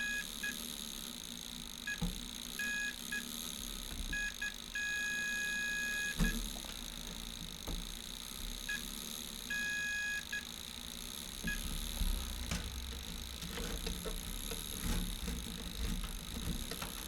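Multimeter continuity tester beeping as its probes touch terminals: short, broken beeps where contact is brief, and beeps held for about a second where the probes rest across a closed connection. The steady beep means the circuit is continuous.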